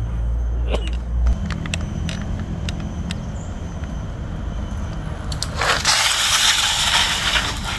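A plastic computer keyboard scraping along an asphalt path under a moving bicycle: a loud, hissing scrape that lasts about two seconds near the end, over a low rumble with a few faint clicks.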